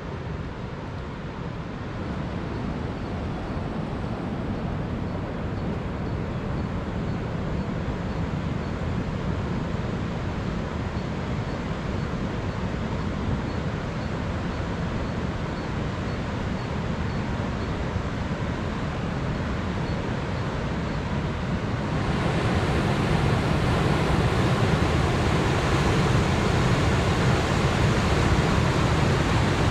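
Steady roar of the high, swollen Lahn river rushing over a weir, growing louder and brighter about two-thirds of the way in.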